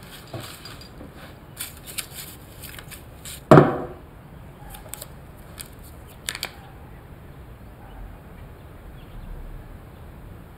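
A small folded paper slip being unfolded by hand, making faint crinkles and clicks, with a brief murmur from a voice about three and a half seconds in.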